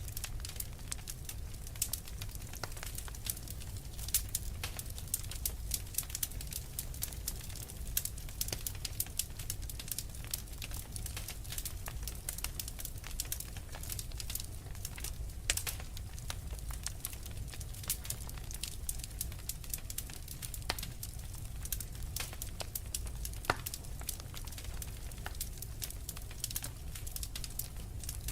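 Fireplace fire crackling, with frequent sharp pops and snaps over a steady low rumble of burning.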